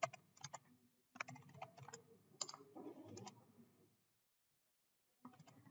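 Faint clicking of a computer keyboard and mouse in irregular clusters of sharp keystrokes and clicks, falling silent about four seconds in and starting again just before the end.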